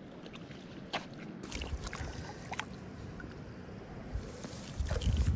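Lake water sloshing and splashing, with small clicks, as a hand works a trout in a rubber-mesh landing net in the shallows. Wind buffets the microphone in gusts, loudest near the end.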